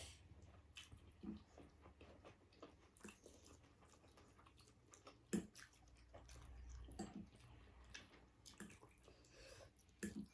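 Faint close-up eating sounds: a person chewing and biting food, with scattered small clicks and one sharper click about five seconds in.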